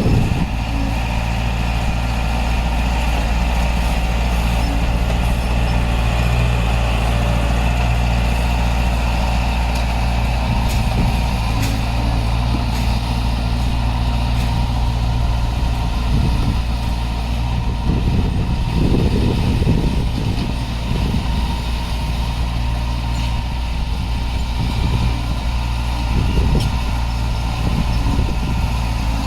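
Diesel engine of heavy earthmoving equipment running steadily, with rougher clattering stretches about two-thirds of the way in and near the end.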